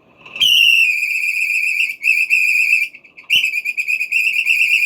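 Bionaire tower fan motor running at its highest speed with a loud, high-pitched squeal that comes in three stretches, breaking off briefly twice. The repairer takes the squeal for a bushing problem in the motor.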